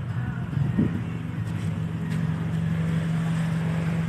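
Motor vehicle engine running with a steady low hum that rises in pitch just under a second in and then holds, with a few faint clicks over it.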